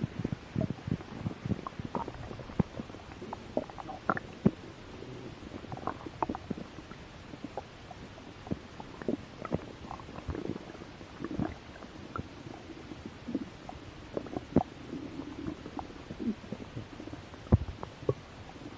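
A hungry person's stomach growling: irregular short pops and squelches with a few brief low gurgling rumbles.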